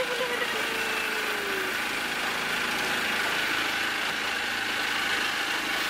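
Motor boat's engine running at a steady drone while under way. A short falling tone sounds briefly near the start.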